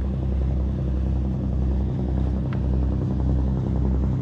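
An engine running close by: a steady low drone with a slight wavering pulse.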